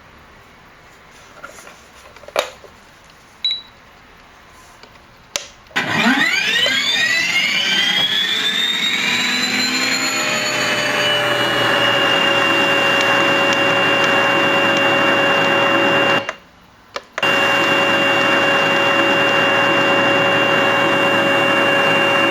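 Heng Long TK6.1 RC tank sound board playing its M1A2 Abrams package through a home cinema speaker: after a few clicks and a short beep, the simulated gas turbine starts up with a whine that rises in pitch over about five seconds, then settles into a steady high idling whine. The sound cuts out briefly for about a second near the middle.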